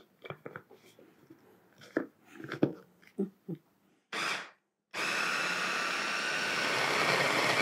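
Scattered clicks and knocks as the hand blender's motor unit is fitted onto its chopper bowl. Then a short burst of the motor about four seconds in. From about five seconds the hand blender runs steadily at speed, chopping ground peanuts and pitted dates into a paste.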